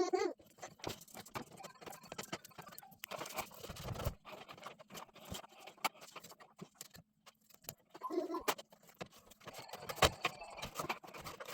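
Irregular clatter of small clicks and knocks, with a brief voice-like sound about eight seconds in.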